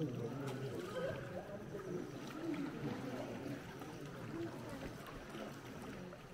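People talking among a group of inflatable sea canoes, over the soft splash of paddles dipping into calm water.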